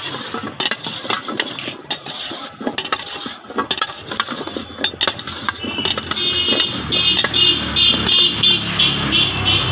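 A metal knife clicking and tapping against a steel bowl in quick, irregular strokes as fruit chunks are cut inside it. About six seconds in, a motor vehicle's engine rises in the background and becomes the loudest sound.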